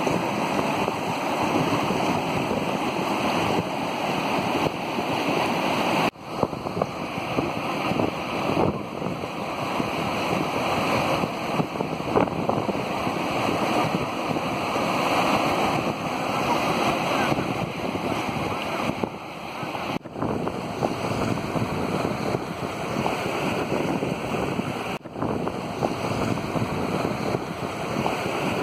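Steady, loud rushing of a fast mountain river in whitewater, running high. The sound dips sharply for a moment three times.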